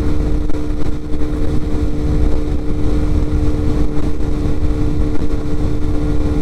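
Lance PCH 125 scooter engine running steadily at cruising speed, a constant drone, with wind rumbling on the microphone.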